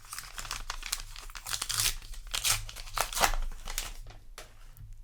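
Trading card booster pack wrapper crinkling and tearing as it is ripped open, in a run of quick rustles and rips.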